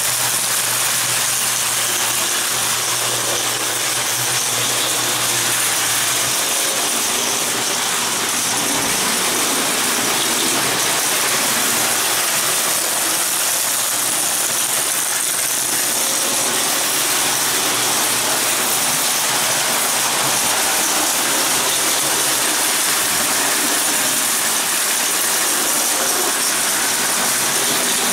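Prewar Lionel O-gauge tinplate trains running on three-rail track: a steady metallic rolling clatter of wheels and motors. A low hum fades out about six seconds in.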